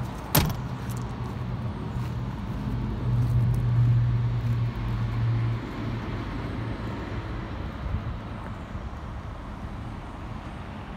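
Scania R520 V8 diesel truck engine idling with a steady low hum, swelling louder for a couple of seconds near the middle. A cab door shuts with one sharp knock about half a second in.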